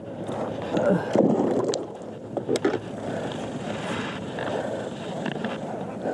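Paddle handling on an inflatable paddle board: water splashing and sloshing, with a few sharp knocks about two and a half seconds in, then a steady wash of water.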